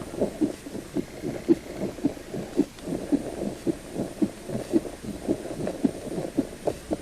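A steady rhythm of soft, low thuds, about two a second.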